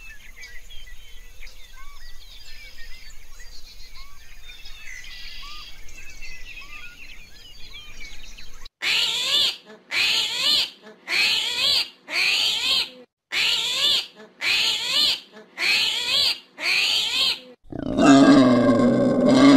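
Faint chirping, then eight loud animal calls of rapidly sweeping pitch, about one a second. Near the end comes a long, loud, low grunting call from a wild boar.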